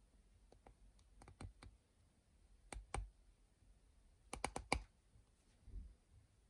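Fingers handling a vintage hard-rubber lever-filler fountain pen, the Stephens Leverfil No. 76, making small clicks and taps against the barrel. A few faint clicks come first, then two sharper clicks near the middle, a quick run of four clicks a little later, and a softer knock near the end.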